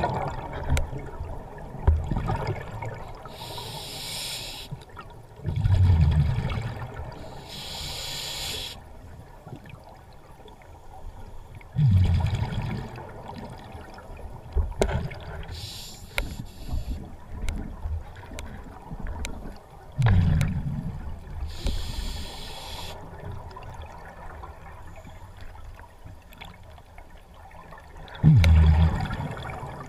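Scuba diver breathing through a demand regulator underwater, slow and regular: a hiss on each inhalation and a low rumble of bubbles on each exhalation, a breath about every seven seconds.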